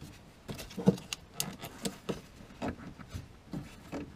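A dozen or so irregular clicks and knocks from hands working a C5 Corvette's fuel filter and pressure regulator assembly and its push-lock fuel line fittings. The lines are being snugged and checked to be sure they are clicked in. The loudest knock comes about a second in.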